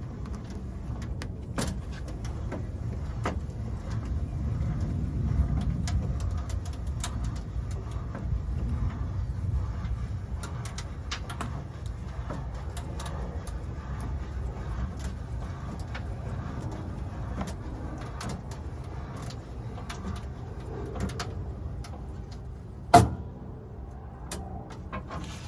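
Spare tire being fitted to and cranked up on a Ford F-150's underbody spare tire hoist: scattered clicks and scrapes over a steady low rumble, with one sharp clunk near the end.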